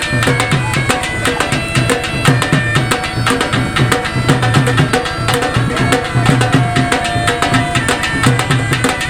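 Background music with a fast, steady drum beat and sustained melodic notes.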